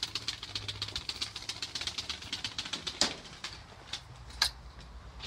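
Playing cards taped to a 2000 Mongoose Mighty Goose 16-inch BMX flicking against the spokes as the bike is wheeled along: a rapid clatter of about ten clicks a second. It slows and stops about three seconds in, and a couple of single clicks follow.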